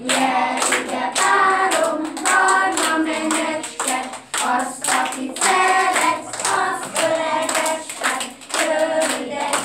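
A group of young children singing a song together and clapping their hands in time, about two to three claps a second.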